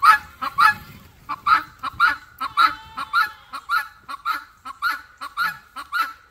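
Helmeted guineafowl calling over and over, a harsh, evenly paced call about twice a second.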